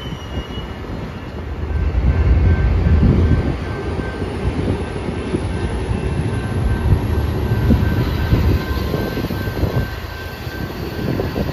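Metra bilevel commuter cars rolling past on the rails as the train pulls away, a steady wheel-on-rail rumble with rapid clacking. It is loudest about two to three seconds in.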